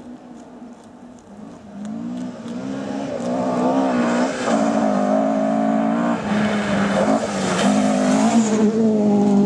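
Rally car on a gravel stage, its engine note growing louder as it approaches and rising and falling in pitch several times, loudest as it passes close near the end.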